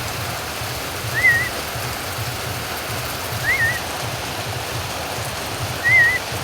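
Steady rain, with a bird giving a short whistled chirp that rises and then wavers, three times, about every two and a half seconds.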